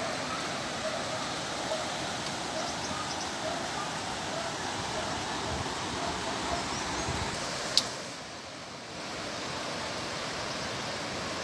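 Fast, muddy floodwater rushing in a steady, even roar. About two-thirds of the way through there is one sharp click, and the sound drops briefly for about a second before the rushing returns.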